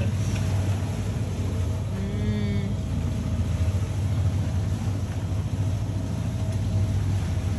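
Steady low drone of the catamaran's engine running, with a thin steady tone above it. About two seconds in, a person gives one short hummed "mmm".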